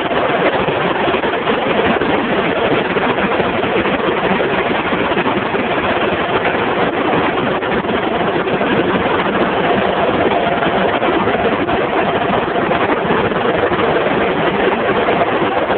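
Web offset rotary newspaper press running: a loud, steady mechanical din with a faint hum of steady tones running through it.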